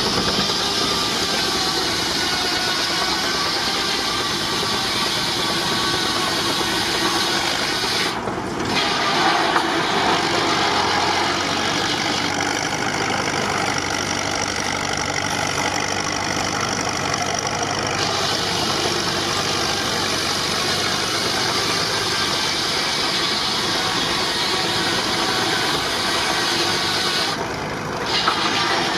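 Steam-powered sawmill running: a steady, dense mechanical noise that dips briefly twice.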